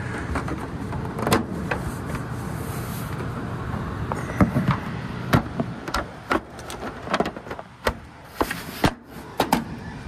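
Gas furnace running steadily with a low hum, and from about four seconds in a series of sharp clicks and knocks from hands working the plastic cover of a furnace-mounted humidifier and the sheet-metal ductwork around it.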